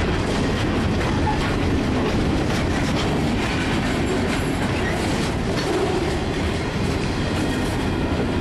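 Freight train's boxcars and flatcars rolling past close by: a steady rumble of steel wheels on rail.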